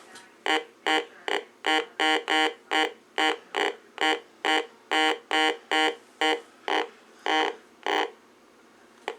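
Heathkit GD-1190 metal detector sounding a target response to a silver quarter passed over its search coil: a run of about eighteen short buzzy beeps, two or three a second, that stops near the end.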